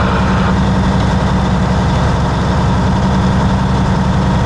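Semi truck's diesel engine running at a steady drone, heard from inside the cab.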